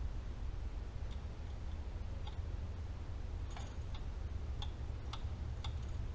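Irregular clicks of a 10 mm ratcheting wrench working the injector return-line banjo bolts, more of them in the second half, over a steady low hum.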